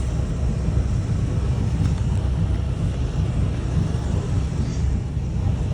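Large boat's engines idling, a steady low rumble.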